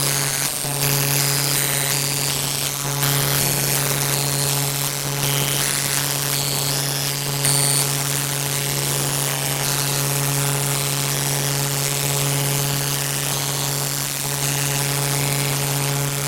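A steady, loud buzzing drone held at one low pitch, with short high-pitched beeps and squeaks coming and going over it.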